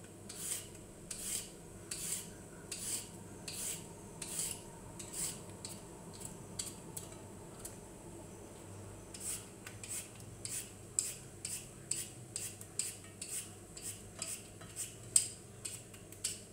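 Vegetable peeler scraping the skin off a carrot in short, regular strokes, about one stroke every three-quarters of a second at first. After a pause of a few seconds midway, the strokes quicken to about two a second.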